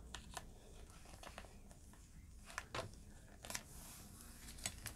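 Faint rustling and a few light clicks of small items being handled and rummaged through, while someone fetches a hot glue stick, over a low room hum.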